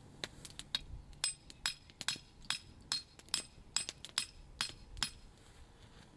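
A run of sharp metallic clinks, about two or three a second, each with a brief high ring, stopping about five seconds in.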